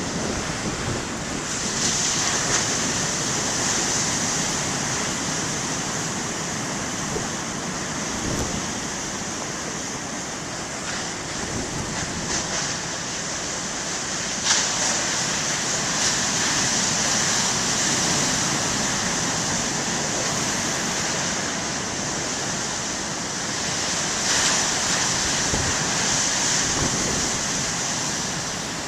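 Heavy ocean surf breaking and washing ashore: a continuous rushing roar that swells and eases as each set of waves comes in, with wind buffeting the microphone.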